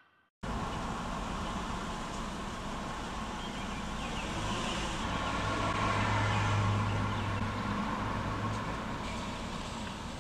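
Car engine running close by, a low hum that grows louder a few seconds in and fades again, over steady traffic noise.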